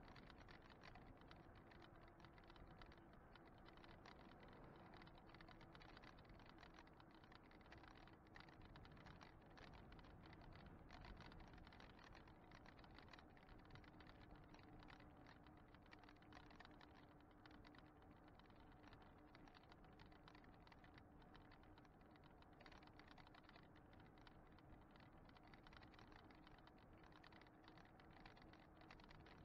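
Faint, dense rattling and ticking of an e-bike and its mounted camera vibrating as the bike rolls along a paved road, over a faint steady hum.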